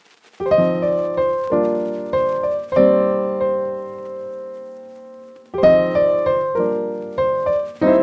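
Solo piano music: chords struck about every half second, one left to ring out for nearly three seconds in the middle before the playing picks up again.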